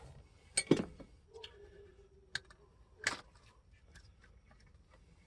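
Sharp plastic clicks and snaps of zip ties being cut and pulled free, with three louder snaps, the loudest under a second in.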